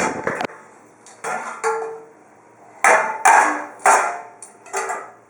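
A dog knocking something hard about, making an irregular run of sharp clattering knocks, each with a short ring. The knocks come in two groups, the second through the last half.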